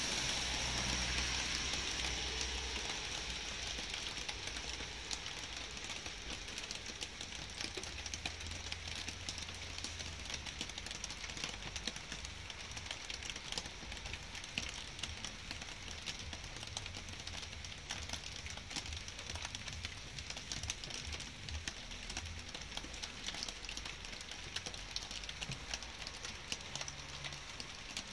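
Light rain with many individual drops ticking and pattering close by over a soft, steady hiss. The hiss is stronger for the first couple of seconds and then eases off.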